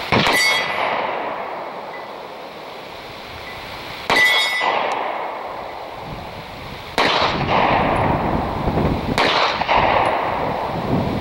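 Four pistol shots from a Springfield Ronin EMP 9mm subcompact 1911 firing Federal Punch defensive hollow points, coming a few seconds apart and closer together toward the end. The first two are followed by a clear metallic ring as the bullet strikes the steel target plate.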